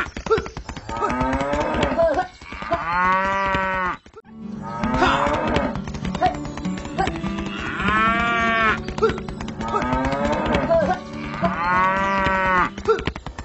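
Cows mooing: a run of long, drawn-out moos, one about every three seconds.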